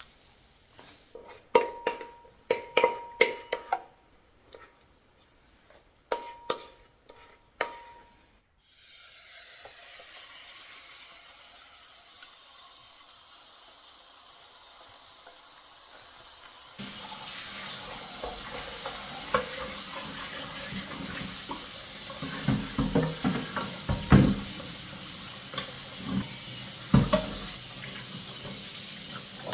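Kitchen utensils clinking and knocking against dishes, some strikes ringing briefly. After an abrupt change about eight seconds in, a steady hiss runs, louder from about halfway, with scraping and knocks over it.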